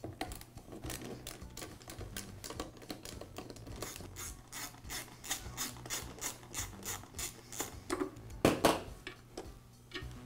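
A hand ratcheting driver clicking in a steady run, about four clicks a second, as screws are backed out of the drain auger motor's side cover. There is one louder knock near the end.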